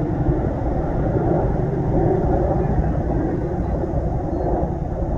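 Military helicopters flying low overhead: a steady, loud rumble of rotor and engine noise.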